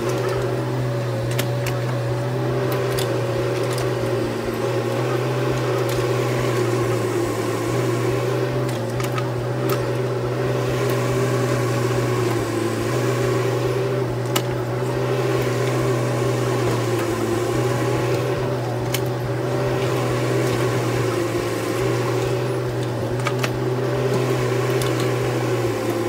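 Bobcat E10 mini excavator running steadily while it digs, its engine tone wavering slightly in pitch, with scattered short clicks from the bucket working soil and stones.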